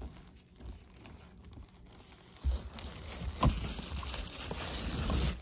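Rustling and crinkling of plastic packaging as a hand rummages in a cardboard delivery box, starting about halfway in, with a couple of soft thumps.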